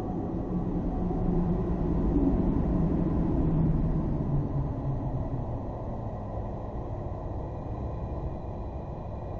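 A deep, low rumble that swells over the first few seconds and then eases into a steady drone, with faint high steady tones above it: an ambient sound-design bed for the film.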